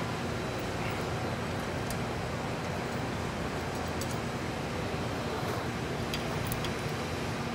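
Steady background hiss with a faint low hum, broken by a few faint light ticks as bolts are fitted by hand into the pump casing.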